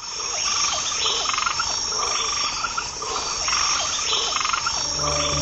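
Frogs and insects calling together: a steady high-pitched insect trill under repeated short frog calls. Soft music notes come in near the end.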